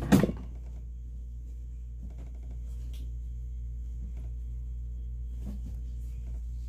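A single thump just after the start, then a steady low electrical hum with a few faint clicks and rustles.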